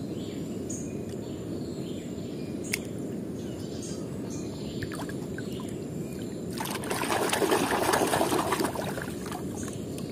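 Muddy water splashing and sloshing in a plastic tub as a small die-cast toy car is dipped and swished in it, loudest from about 6.5 to 9 seconds in, over a steady low rush.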